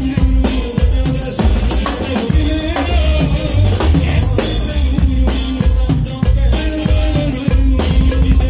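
Live band playing a song, heard close to the drum kit: the drummer keeps a steady beat on kick drum, snare and cymbals under the rest of the band.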